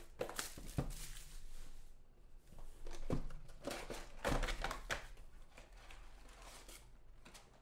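Clear plastic shrink-wrap crinkling and tearing as it is pulled off a cardboard trading-card box, with a few separate crackly strokes in the first half, then quieter handling of the opened cardboard box.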